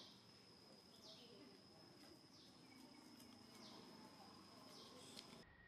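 Near silence: faint outdoor ambience with a steady high whine and a short falling call repeating about every second and a half. The sound changes abruptly near the end.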